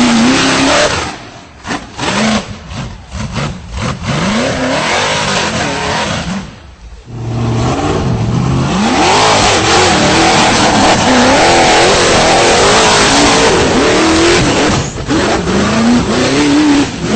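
V8 engine of a tube-chassis rock bouncer buggy revving hard in repeated bursts as it climbs, pitch rising and falling with the throttle. After a brief drop about seven seconds in, it holds high, wavering revs for several seconds, then goes back to short blips near the end.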